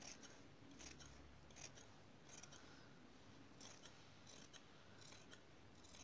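Large tailor's shears snipping through folded brocade fabric: faint, regular blade closures, a little under one a second.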